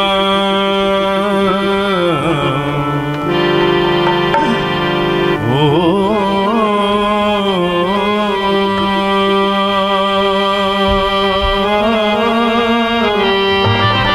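Male folk singer holding long wordless notes that waver and glide, over the steady sustained chords of a harmonium.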